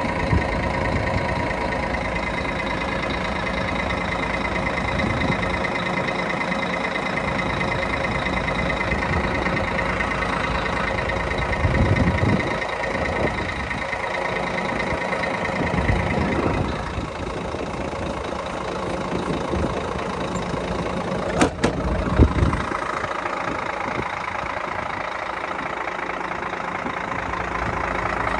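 Scania P114's six-cylinder diesel engine idling steadily, with a few dull thumps and two short knocks a little past the middle.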